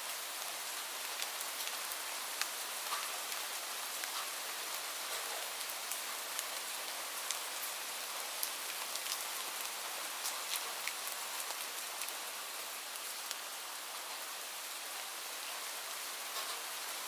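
Light rain falling steadily, an even hiss with many separate drops ticking on a surface.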